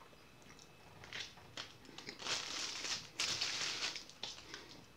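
Plastic snack wrapper crinkling in several short bursts as a Moon Pie sandwich is handled and set down on it.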